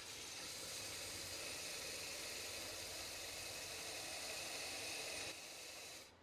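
A wooden workpiece being squared off on a spinning wood lathe: a steady hiss from the cut. It weakens a little about five seconds in and stops just before the end.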